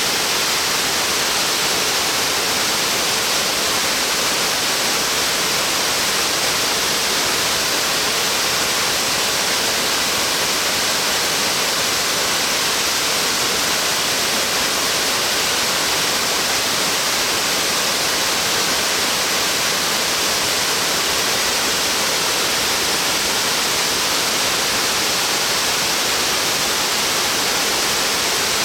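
Uba Falls, a 111 m tall, 40 m wide branching waterfall: water falling in a loud, steady, unbroken rush, with a strong hiss.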